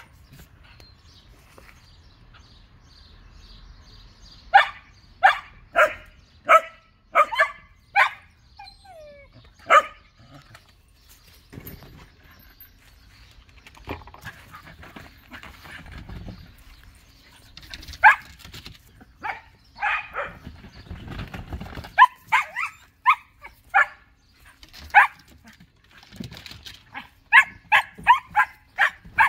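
Shetland sheepdogs barking during chase play: sharp, short barks in runs, a string of about eight in the first third, more scattered through the middle, and a quicker burst near the end.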